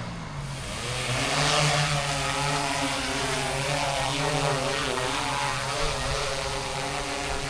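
DJI Matrice 30T quadcopter's motors and propellers spin up about half a second in, rising in pitch, then run with a wavering hum as the rotor speeds keep shifting.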